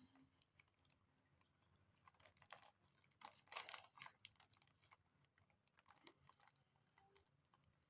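Faint scattered clicks and rustling of hands handling a handmade squishy toy and its wrapping, with a louder rustle about three and a half seconds in.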